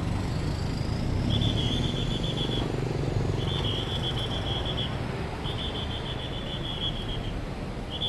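A traffic policeman's pea whistle blown in four trilling blasts about two seconds apart, each a little over a second long, the first about a second in, over the steady rumble of passing cars and motorbikes on a wet road.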